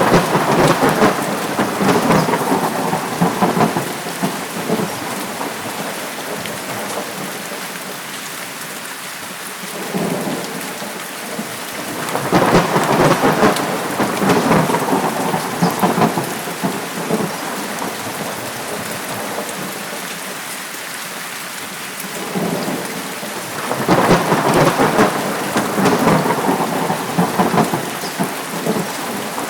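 Steady heavy rain with three long rolls of thunder, each rumbling for several seconds: one at the start, one about a third of the way in, and one near the end.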